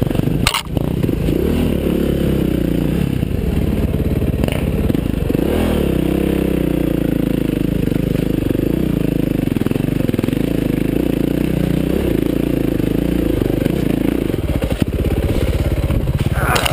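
KTM 530 XC-W dirt bike's single-cylinder four-stroke engine running and revving unevenly on a steep rocky hill climb, with scraping and clattering from the rough ground. Near the end there is a sharp clatter as the bike, out of momentum, goes down on its side.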